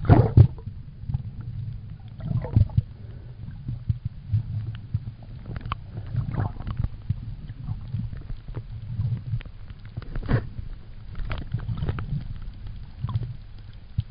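Muffled underwater rumble and swash of water around a camera held under the surface, swelling and fading every second or two, with scattered sharp clicks and pops.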